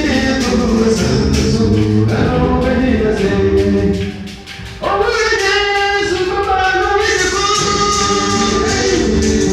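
Male vocal group singing in harmony into microphones, amplified over a PA. About four seconds in the singing briefly drops away, then comes back loud on held chords.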